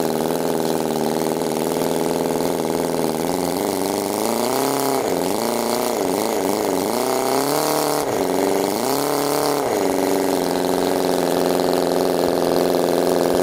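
Cison inline four-cylinder four-stroke water-cooled model gasoline engine idling steadily, then revved up and back down four or five times in quick blips from about four seconds in to about ten seconds in, before settling back to a steady idle.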